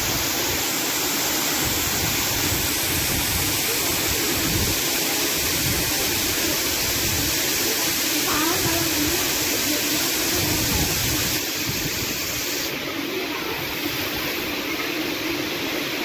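Steady rushing of a waterfall and fast-flowing river water, an even noise that holds at the same level throughout.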